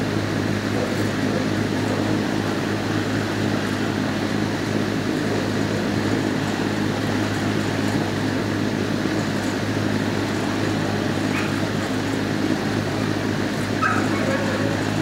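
Steady hum and rush of building ventilation in a dog shelter's kennel room, with a dog yipping briefly near the end.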